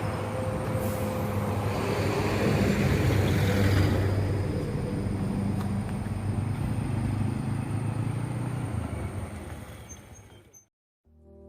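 A heavy road vehicle goes past, its engine hum and road noise swelling to a peak about four seconds in and then fading away. The sound drops out just before the end, when music begins.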